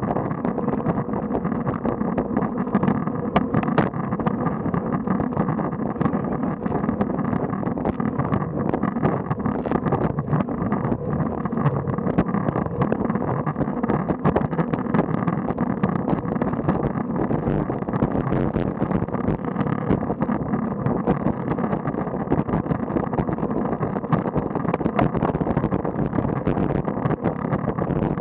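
Steady rush of wind and road noise on a bicycle-mounted camera's microphone while riding, dotted with small clicks and rattles.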